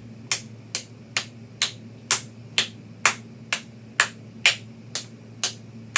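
A person clapping her hands in a steady rhythm, about two claps a second.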